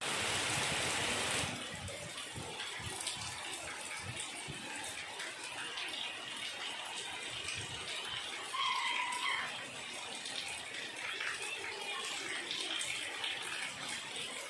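Heavy rain falling steadily, a little louder for the first second and a half.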